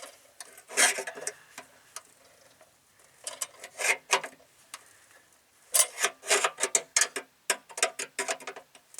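Vice grips working the folded-over edge of a polished stainless steel fender, giving short rasping scrapes and knocks of metal on metal. One stroke comes about a second in, a few more near the middle, and a quick run of them in the last three seconds.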